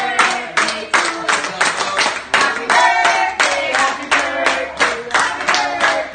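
A group of people clapping their hands in a steady rhythm, about three claps a second, with singing.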